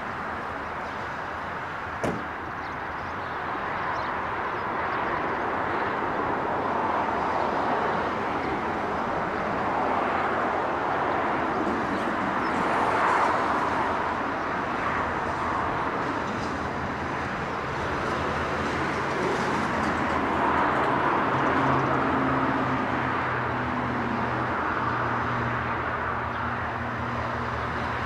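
ALF-class diesel-electric locomotives running light toward the listener. A steady low engine drone, with a second higher tone, comes in about halfway through and holds, over a constant rushing background noise. One sharp knock about two seconds in.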